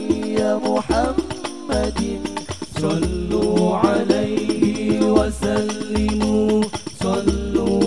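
Male group singing an Arabic sholawat in unison over a Banjari rebana frame-drum ensemble, with a deep drum stroke roughly every second and jingling percussion on top.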